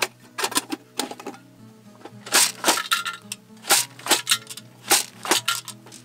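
Hand jab planter (matraca) clacking repeatedly as it is worked, its seed mechanism rattling as bean seeds drop, about a dozen sharp clacks in uneven clusters; it is dropping two beans per stroke. Background music plays under it.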